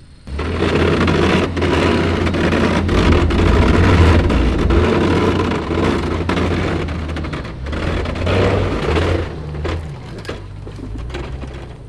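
Four-wheel-drive vehicle's engine running hard with a steady low drone, with many sharp knocks and clatter over it. It eases off about nine seconds in.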